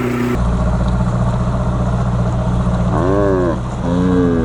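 Yamaha V4 115 hp outboard motor running steadily as the deck boat travels, with a steady drone under a haze of wind and water noise.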